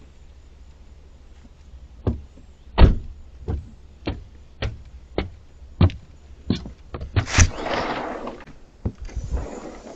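Footsteps, a steady series of thuds about one every two-thirds of a second, picked up through a Reolink doorbell camera's built-in microphone, followed by a second of scraping, rustling noise near the end.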